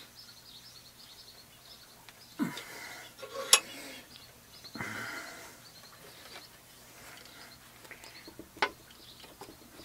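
Metal handling noises at a bench vise: a few sharp clicks and clunks, the loudest about three and a half seconds in and another near the end, as a steel bolt is clamped and an angle grinder that is not running is brought up to it. Faint bird chirps in the background.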